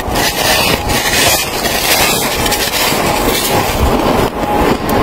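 A person biting into a handful of packed snow and chewing it close to the microphone: continuous loud crunching.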